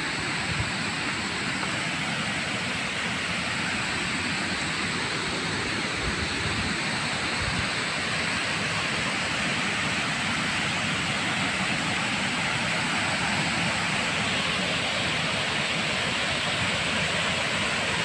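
Waterfall about ten metres high, pouring steadily: an even, unbroken rushing noise.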